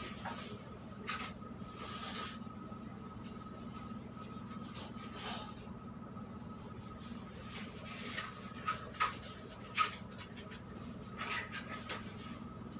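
Hands scrubbing shampoo lather into a wet dog's coat in short, repeated wet swishes, with a few sharper clicks about two-thirds of the way in. Under it runs a steady machine hum with a faint whine.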